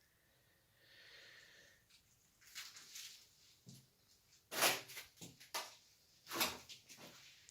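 A run of sharp knocks and scrapes from hard objects being handled, the loudest about halfway through and again near the end, after a short faint hiss about a second in.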